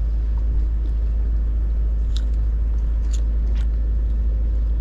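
Steady low rumble of wind buffeting the camera microphone, with a few faint ticks about two to three and a half seconds in.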